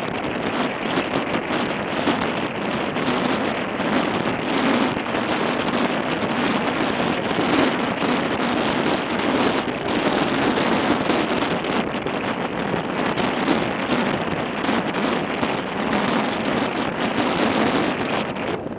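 Steady wind rushing over the microphone of a moving motorcycle, mixed with the hum of engine and tyre noise.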